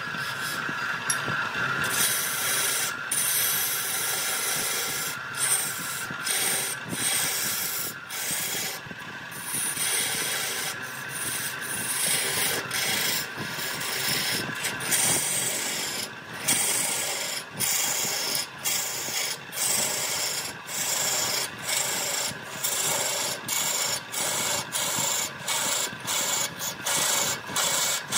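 Wood spinning on a wood lathe with a tool or abrasive rubbing and rasping against it, in repeated passes broken by frequent brief gaps.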